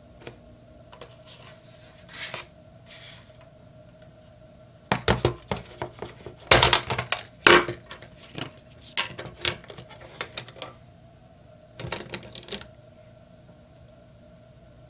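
Metal watercolor paint tin being handled and opened: a run of sharp clicks and metallic clatter, with two louder knocks in the middle and a few lighter clicks before and after.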